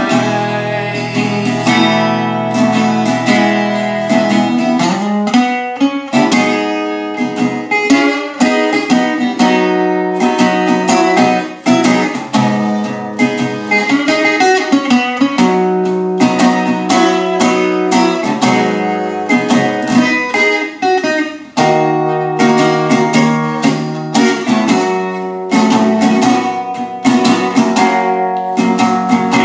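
Metal-bodied resonator guitar played finger-style, a steady run of chords and picked notes with the bright, ringing tone of the metal cone.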